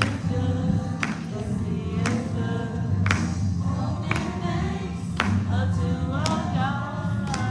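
Gospel worship music: voices singing over a band with a steady bass and a sharp beat about once a second.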